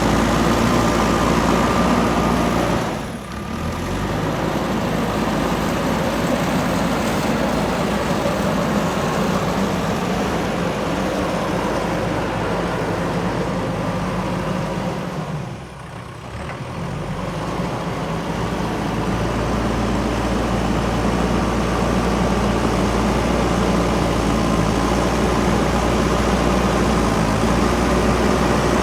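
JCB 3DX backhoe loader's diesel engine running steadily under working load, with a steady low hum of pitched tones. The sound drops sharply and briefly twice, about three seconds in and again near the middle.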